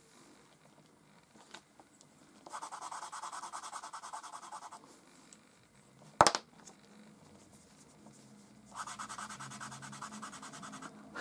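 Grey compressed charcoal stick scratching back and forth on drawing paper in quick strokes, in two runs: about two and a half seconds in, and again near the end. A single sharp click comes about six seconds in.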